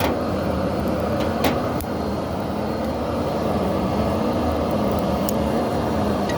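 Forge fire running steadily: a continuous rush of air and flame with a low wavering hum, and a few sharp crackles about one and a half seconds in and near the end.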